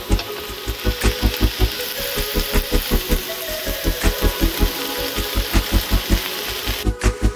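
Background music with a quick, steady beat over the sizzle of a stir-fry of pork, mushrooms, snow peas and corn frying in a wok; the sizzling cuts off about seven seconds in.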